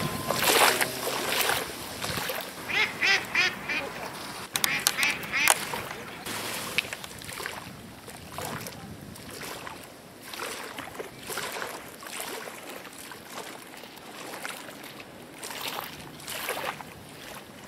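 Ducks quacking in quick runs of calls, three loud bursts in the first six seconds, then fainter, scattered calls.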